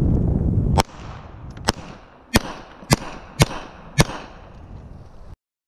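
A red-dot-sighted pistol firing a string of six shots, roughly half a second apart and the last four the sharpest. A loud low rumble on the microphone runs under the start and stops with the first shot.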